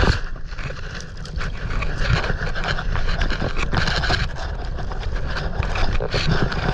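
Strong gusty wind buffeting the microphone in a continuous rumble, with scattered knocks and clicks throughout.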